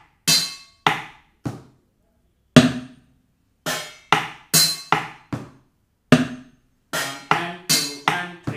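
About fifteen sharp strikes on household objects, mainly a steel thali plate, each with a short metallic ring. They fall in a four-beat pulse pattern, with some off-beats played and others left out.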